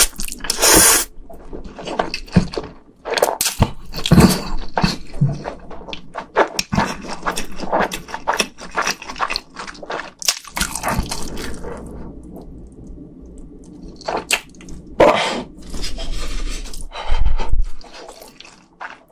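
Close-miked mukbang eating sounds of spicy food: wet chewing, smacking and squishing, with irregular clicks and crackles and a quieter stretch about two thirds of the way through.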